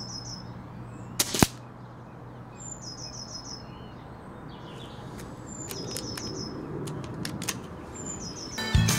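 A single shot from a Shin Sun Career 707 Mk II PCP air rifle about a second and a half in: a short, sharp crack. Birds chirp on and off around it, and music comes in near the end.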